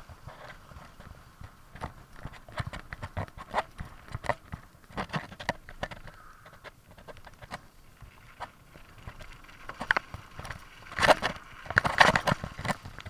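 Mountain bike clattering over a bumpy, muddy downhill trail: a quick, irregular run of knocks and rattles as the bike jolts over roots and ruts, with a louder cluster of hard jolts about eleven to twelve seconds in.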